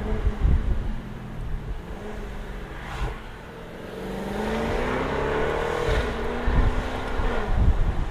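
Jaguar F-Type V8 R's supercharged 5.0-litre V8 on the move: it runs quieter off throttle with a single sharp pop about three seconds in, then its note rises steadily under acceleration for a couple of seconds. It eases off near the end with a few low thumps.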